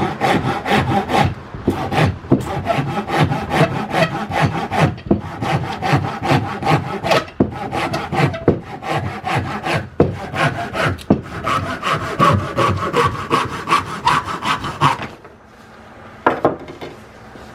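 1950s Disston keyhole saw cutting through a small strip of wood with rapid back-and-forth strokes, in a vise that keeps slipping and letting the blade bind. The sawing stops about 15 seconds in as the piece is cut through, followed by a single knock.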